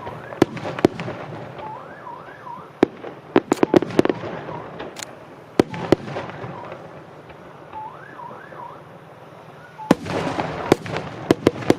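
Aerial fireworks going off in a series of sharp bangs and cracks, with a dense crackling volley near the end. Through them runs a warbling, siren-like tone that swoops up and down in pairs.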